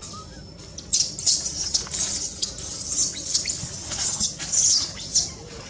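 Leafy undergrowth and dry leaf litter rustling and crackling in irregular bursts. The rustling starts about a second in and dies down near the end.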